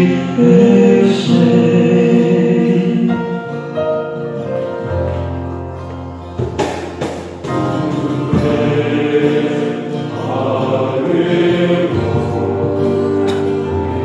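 Male choir singing in harmony, holding long chords.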